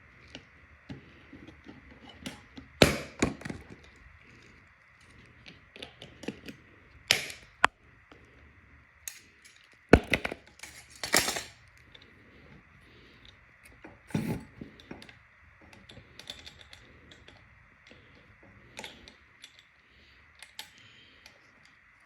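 Irregular clicks, knocks and rustling from handling an e-bike and its packaging, with sharper knocks about three, seven, ten and fourteen seconds in.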